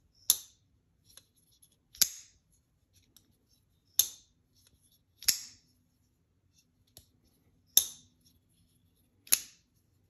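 Titanium integral folding knife with a thumb-stud-opened blade, snapping open and dropping shut repeatedly: six sharp metallic clicks, each with a brief ring.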